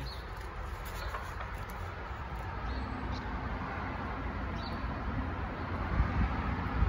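Steady low background rumble and hiss, with a few faint paper rustles and light taps as the pages of a picture book are turned, and a soft thump near the end.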